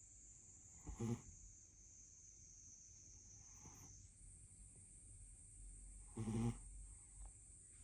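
A sleeping pet snoring through its nose: two short snores, about a second in and again about five seconds later, with a softer breath between. A faint steady high whine runs underneath and shifts up slightly in pitch midway.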